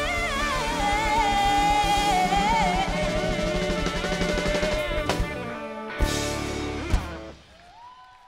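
The end of a pop song: a singer holds the last word, 'day', over a band with a steady drum beat. The band closes with a few single drum hits and the music stops shortly before the end.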